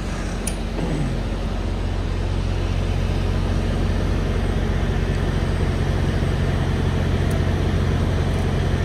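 Diesel semi truck engine idling: a steady, low, even drone.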